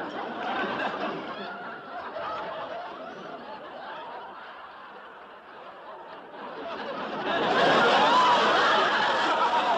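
People laughing and giggling, with some chatter. The laughter dies down in the middle and grows louder again about seven seconds in.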